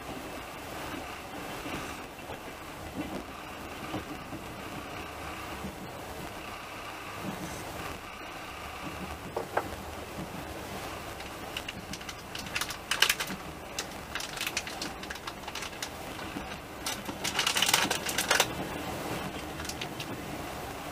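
Steady running noise of a passenger train heard from inside the carriage, with two spells of rapid clicking and rattling, one about twelve seconds in and a longer one a few seconds before the end.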